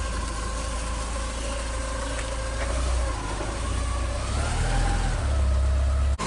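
Porsche 944's four-cylinder engine running steadily, its low rumble growing louder in the second half, then cutting off abruptly near the end.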